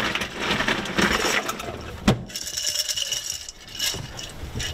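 Ice cubes rattling and clinking as they are scooped out of a cooler into a cup, with a sharp click about two seconds in.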